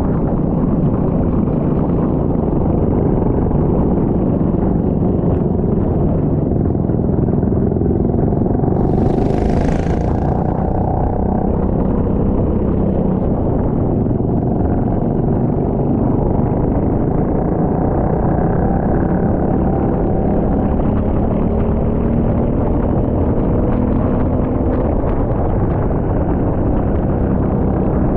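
Rental racing kart engine running hard, its pitch rising and falling as it accelerates and slows, under a constant rumble of wind and road noise. A short hiss comes about nine seconds in.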